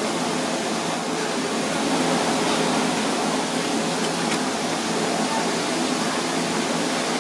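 Steady rushing background noise at an even level, with no distinct knocks or voices standing out.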